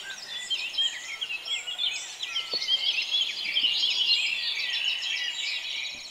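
Dawn chorus of many small birds chirping and singing over one another. The chorus grows louder toward the middle.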